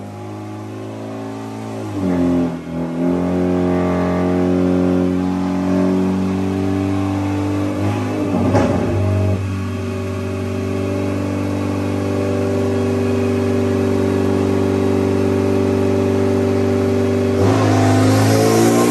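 Hyundai Genesis Coupe 2.0T's turbocharged four-cylinder engine running on a chassis dyno, held at steady revs well above idle, then revving up with a rising pitch in the last second and a half.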